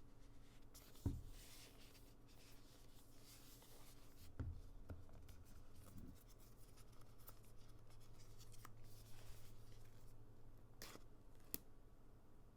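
Faint handling of a phone's retail box and packaging: light rustling and scraping of cardboard and paper, with a soft thump about a second in, a few knocks around the middle, and two sharp clicks near the end.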